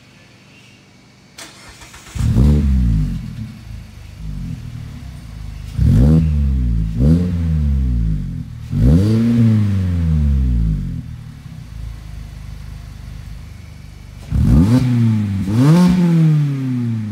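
Mazda MX-5 Miata ND's four-cylinder engine free-revving through an Agency Power catback exhaust with resonator and muffler, heard at the dual tailpipes. It gives six quick throttle blips in three groups, each a sharp rise in pitch that falls back to a steady idle.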